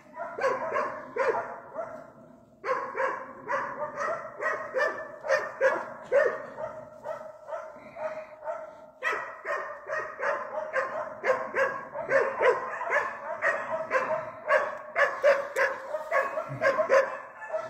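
Hunting dog barking at a wild boar, several barks a second with hardly a let-up: the dog is baying, holding the boar at bay. The barking breaks off briefly about two seconds in and again near the middle.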